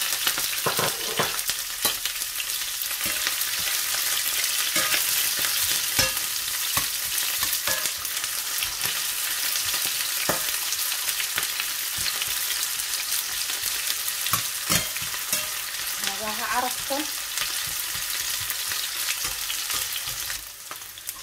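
Sliced raw onions sizzling in hot oil in a stainless steel frying pan, a steady frying hiss. A metal slotted spatula stirring them scrapes and clicks against the pan now and then.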